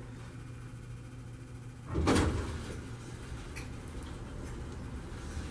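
A single short knock from an elevator's sliding door about two seconds in, over a steady low hum.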